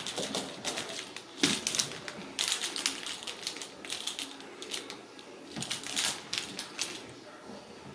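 Ragdoll kittens playing with toys on a rug: a rapid, irregular patter of small clicks and scratches, with a few louder knocks.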